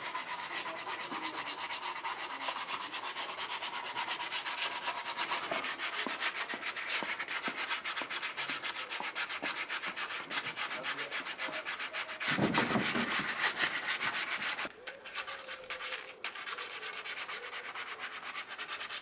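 A twisted wooden walking stick being hand-sanded with sandpaper, in rapid, even back-and-forth rasping strokes, louder for a couple of seconds about two-thirds through. This is the final smoothing before the stick is varnished and waxed.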